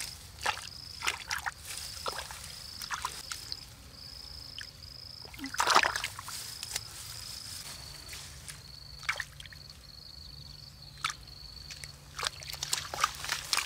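Bare hands squelching and sloshing in a small muddy, water-filled hole among grass, with scattered wet splashes; the loudest slosh comes about halfway through.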